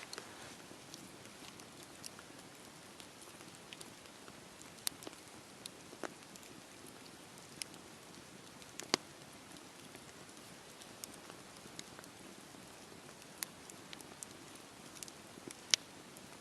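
Campfire wood burning: a steady soft hiss with scattered sharp crackles and pops, a few of them louder, around the middle and near the end.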